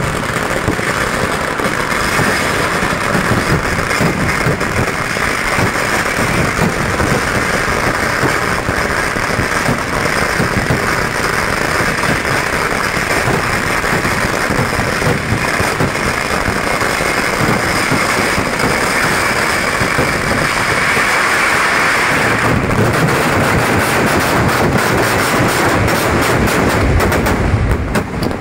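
Fireworks and firecrackers going off at ground level in a dense, continuous crackle of rapid bangs, like machine-gun fire. Deeper bangs join in during the last several seconds.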